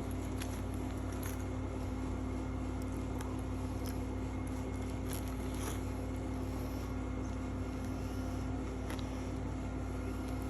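Steady low background hum with a faint steady tone, and a few faint soft clicks scattered through it.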